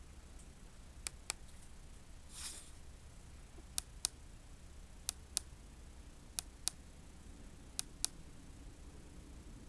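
Keypad push button on a LightOne Pro light box clicking as it is pressed and released, five times, in sharp double clicks about a quarter second apart and roughly a second and a bit between presses. A short rustle about two and a half seconds in.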